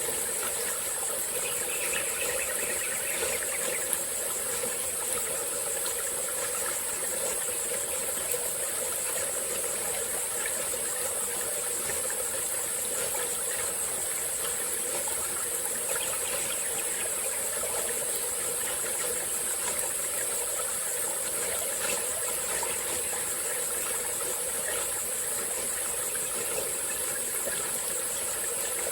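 Small stream flowing steadily over rocks, with a constant high-pitched insect chorus above it that is the loudest part of the sound.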